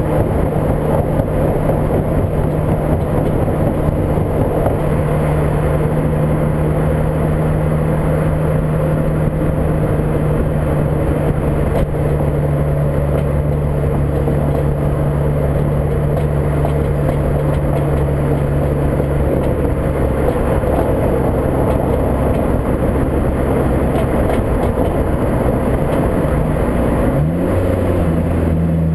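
Mk5 VW GTI's 2.0T FSI engine droning steadily under heavy wind and road noise heard from the moving car. There is one brief knock about twelve seconds in, and near the end the engine pitch rises and falls again.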